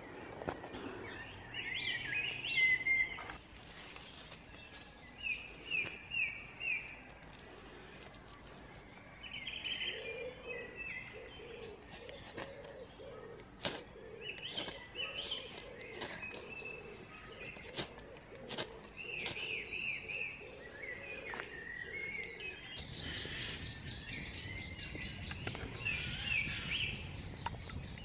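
Woodland birdsong: several birds chirping and singing in short repeated phrases, with a lower repeated call through the middle and scattered sharp clicks.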